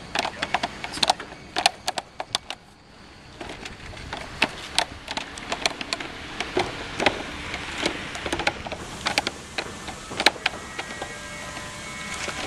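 EventDeck Ultra rigid plastic turf-protection panels clicking and clacking as they are fitted together and walked on: a run of irregular sharp clicks, with a short lull about three seconds in.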